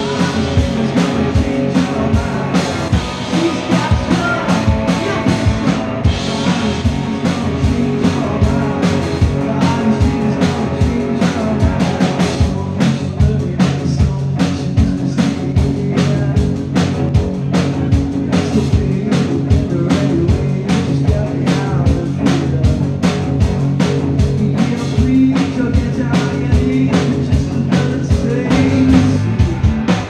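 A three-piece rock band playing live on electric guitar, bass and drum kit, with a steady, busy drum beat over the guitars.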